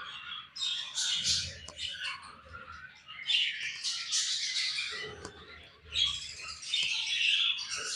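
Baby budgerigars chirping and squawking, many short high calls overlapping in a continuous chatter that grows busier in the second half.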